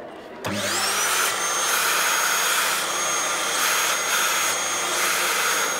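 Electric chalkboard-eraser cleaner switched on about half a second in: its suction motor spins up with a rising whine and then runs steadily. A chalk eraser is rubbed back and forth over the suction intake, the hiss swelling and dipping with each stroke.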